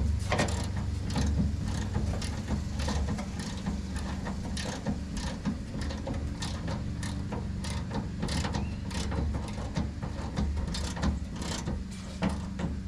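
A 1/4-inch hand ratchet working a nut down a tailgate handle stud in many repeated strokes, clicking on each back-swing; the nut is slow to run down. A steady low hum runs underneath.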